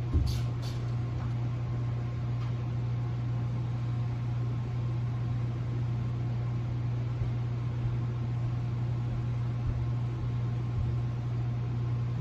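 A steady low mechanical hum, with a few brief clicks about half a second in.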